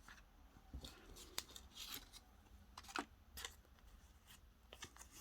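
Faint, scattered light clicks and brief rustles of small paper and plastic scrapbooking packets being handled and set down on a table.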